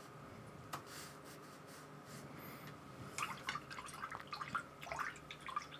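Paintbrush being rinsed in a water pot: a single light tap about a second in, then a quick run of faint small splashes and taps against the pot in the second half.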